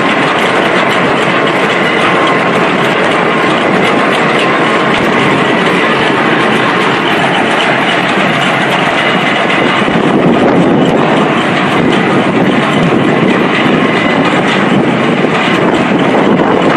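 Rotary well-drilling rig running: a loud, steady machine noise packed with a fast rattle, with a faint steady whine over it.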